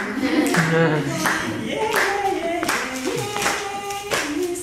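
Unaccompanied singing with hand claps keeping a steady beat, a little faster than one clap a second.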